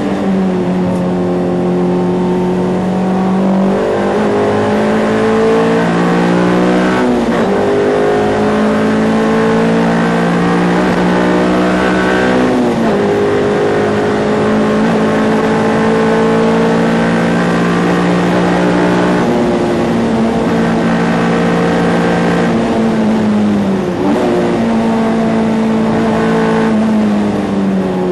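Ford Fiesta race car's engine heard from on board, running hard at high revs. Its pitch climbs slowly along the straights, with several brief dips and recoveries where it comes off the throttle or changes gear.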